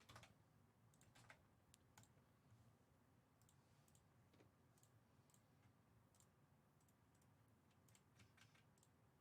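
Near silence with faint, scattered small clicks, a few a second at most.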